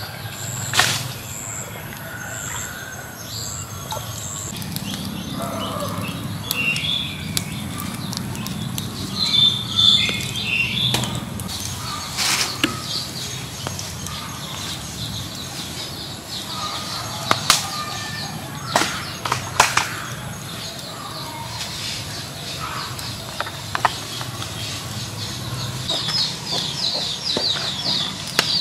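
Birds chirping and chickens clucking, with scattered sharp knocks and clicks from time to time.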